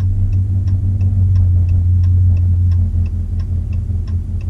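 Steady low drone inside the cab of a 2020 Ram 1500 pickup on the move, with the indicator ticking evenly about three times a second.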